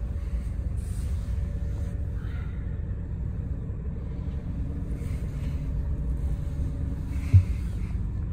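Scania K440IB coach's 13-litre straight-six and running gear heard from inside the passenger cabin: a steady low rumble. One short, sharp low thump comes near the end.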